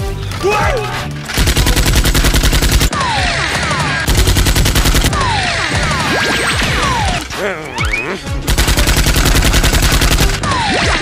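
Three long bursts of rapid automatic gunfire, with falling whistling whizzes between the bursts.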